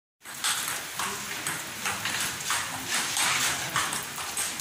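Table-tennis doubles rally: a celluloid ball clicking off the bats and the table in a steady back-and-forth, about two strikes a second.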